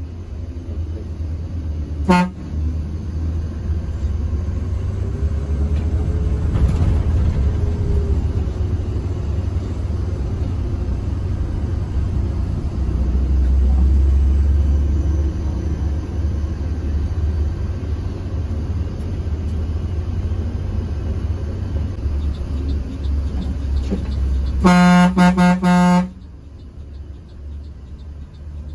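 Bus engine and road noise rumbling steadily. A short horn toot comes about two seconds in, and a louder, longer horn blast of just over a second comes near the end.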